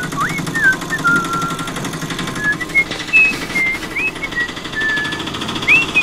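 Rapid, even putter of a small auto-rickshaw engine, with birds chirping and whistling over it.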